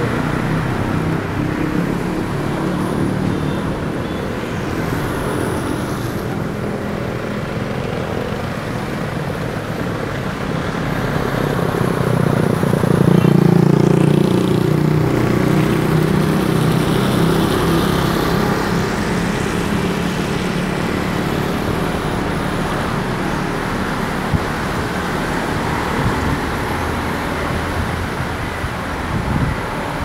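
Car driving on a wet town road, heard from inside the cabin: steady engine and tyre noise with surrounding traffic, swelling louder for a few seconds about twelve seconds in.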